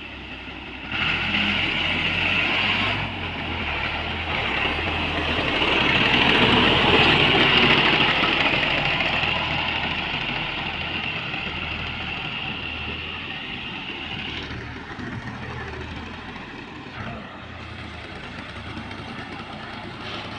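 Farm tractor's diesel engine running steadily, growing louder for a few seconds near the middle and then easing off.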